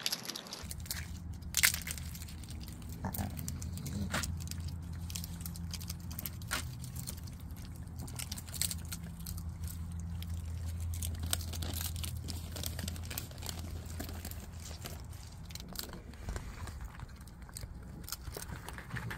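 Raccoons crunching and chewing food, with irregular sharp crackles over a steady low hum that fades out near the end.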